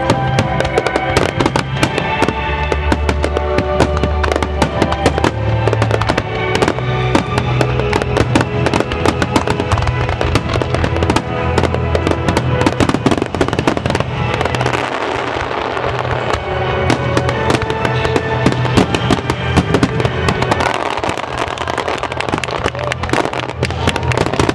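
A dense run of fireworks shells bursting and crackling in quick succession over music.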